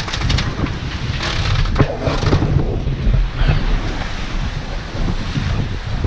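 Wind buffeting the microphone in a heavy, uneven rumble, over the hiss and splash of sea water rushing past a sailing catamaran's hulls.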